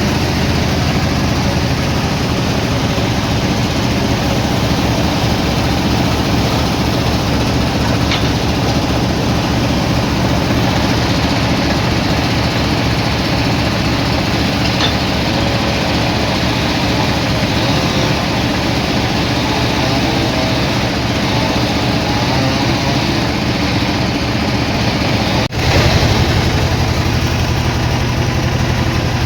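Engine-driven sawmill machinery running steadily, with a low, even engine drone. It cuts off abruptly about 25 seconds in and resumes slightly louder.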